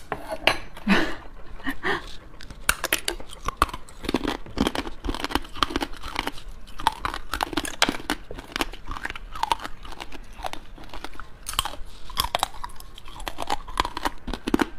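Close-up crunching and chewing of shards of a brittle blue candy dome, with many sharp cracks one after another.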